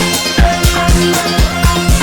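Background music with a steady electronic drum beat and a low bass line.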